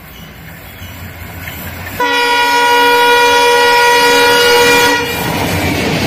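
Twin WDG3A diesel locomotives, ALCO 16-cylinder engines, chugging as they approach under power and accelerate, growing louder. About two seconds in, the locomotive's horn sounds one long blast of about three seconds, and near the end the locomotives pass close with loud engine and wheel noise.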